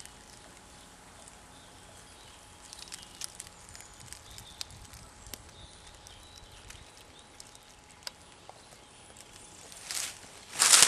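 Faint outdoor ambience with scattered small clicks and ticks. Near the end a much louder crackling, crunching rustle sets in suddenly.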